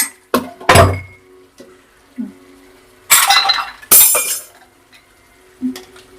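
A spoon knocking and scraping against a cooking pan as a thick chicken roast is stirred. There are a few sharp knocks in the first second, a lone knock about two seconds in, and two harsh scraping strokes around three to four seconds in.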